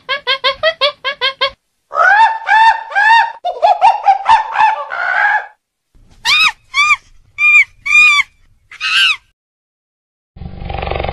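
Monkey calls: a quick run of short calls, then a string of longer calls that rise and fall in pitch, then several high shrill screeches. Near the end a cheetah gives a low rasping growl.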